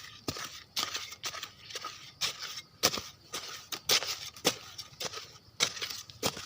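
Dry forest leaf litter crunching and crackling, in sharp, irregular crunches about one or two a second.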